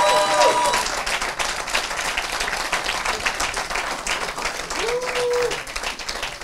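Theatre audience applauding steadily, a dense patter of many hands clapping, with voices calling out over it near the start and again about five seconds in.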